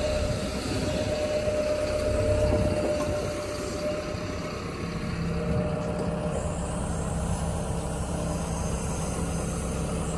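Kobelco hydraulic excavator's diesel engine running steadily as it carries and lowers a concrete pipe hung on a chain from its bucket, its engine note shifting about halfway through.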